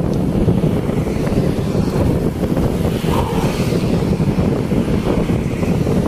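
Steady wind rumble on the microphone of a camera riding along on a moving bicycle.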